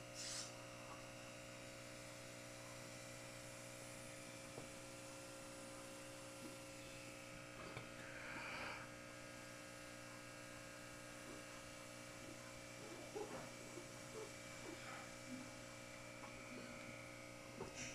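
Faint, steady electrical hum, with a few soft, faint handling sounds; the longest lasts about a second, some eight seconds in.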